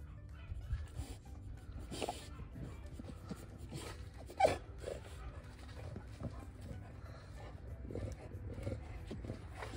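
A Chow Chow dog giving a short yelp about two seconds in and a louder, sharp yelp about four and a half seconds in.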